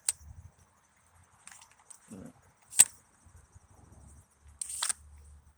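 Airsoft gear being handled: a few sharp clicks, the loudest nearly three seconds in, and a brief scraping rustle near the end.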